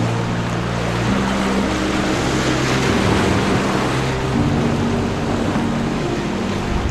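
Sea waves surging and breaking over shoreline rocks, with soft background music of long held notes that change every second or two underneath.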